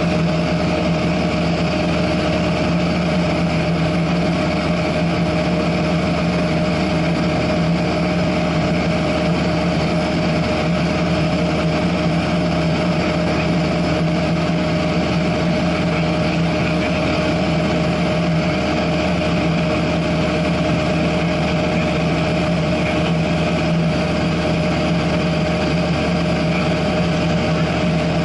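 Cessna 172SP's four-cylinder Lycoming engine and propeller droning steadily in flight, heard inside the cabin.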